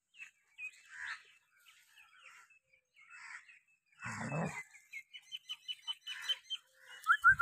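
Small birds chirping in short scattered calls, including a quick run of about seven high chirps between five and six and a half seconds in. A short, low, rough dog sound comes about four seconds in, and a louder short sound with quick rising notes comes near the end.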